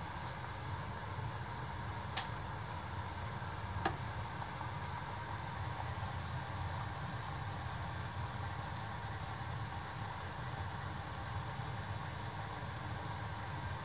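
Pot of pork and vegetable soup at a boil on an induction hob, giving a steady low bubbling rumble. A ladle clicks against the pot twice, about two and four seconds in, while skimming the scum.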